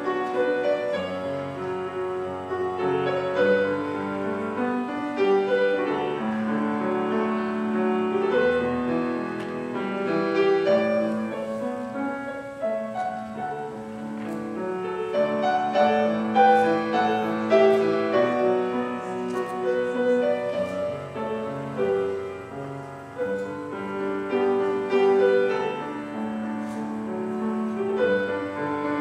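Piano playing a classical-style piece, chords and melody notes held and changing about once a second.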